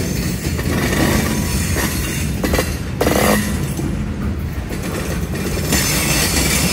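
Freight cars (a tank car and boxcars) rolling past close by: the steady rumble of steel wheels on the rails, with a few sharper knocks around the middle.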